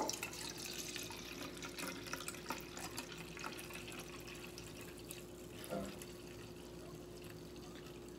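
Vinegar being poured, a quiet trickling stream that thins out about halfway through.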